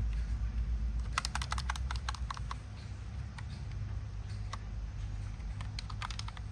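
Computer keyboard typing: a quick run of key clicks in the first couple of seconds, then a few scattered keystrokes, over a steady low hum.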